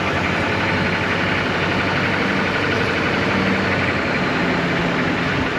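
Pickup truck driving slowly with its engine running, under a steady rush of road and wind noise through the open driver's window.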